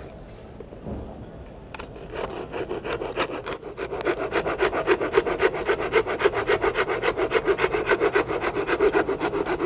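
Hand flooring saw with a cut-off tip, sawing through a wooden flooring board in quick, even strokes. The sawing starts about two seconds in and soon settles into a fast, steady rhythm of several strokes a second. A single low thump comes just before the sawing starts.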